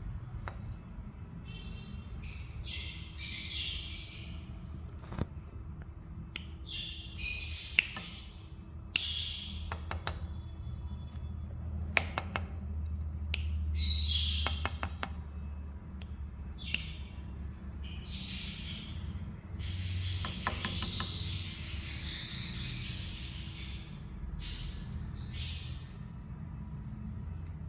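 Small pet parrots chirping and chattering in irregular bursts, with a few sharp clicks and a steady low rumble underneath.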